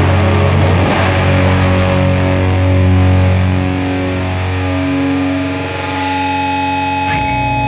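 Doom metal: heavily distorted electric guitar playing slow, sustained low notes, settling into a long held, ringing chord near the end.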